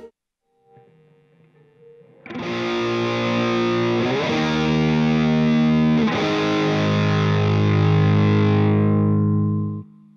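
Distorted Kiesel electric guitar played through a HeadRush multi-effects pedalboard and recorded direct, so only the guitar is heard, with no vocals or crowd. After about two seconds of near silence a chord rings out and holds, shifting to new notes twice. It is cut off sharply near the end.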